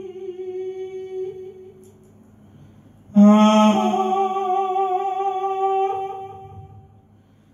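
A man humming long held notes into a handheld microphone, without words. One note fades away over the first two seconds. About three seconds in, a new loud note starts, steps up in pitch, wavers with vibrato, and fades out near the end.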